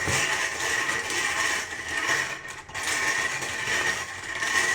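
A small motorized machine running steadily, a constant high whine over a rattling, scraping noise.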